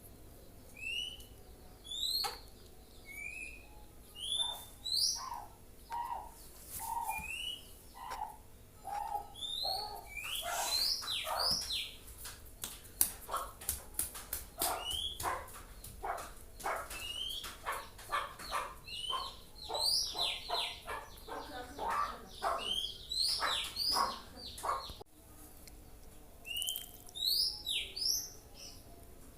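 Oriental magpie-robin (kacer) chirping with short, high rising notes, breaking from about ten seconds in into a long run of rapid song phrases, several notes a second, before going back to scattered chirps.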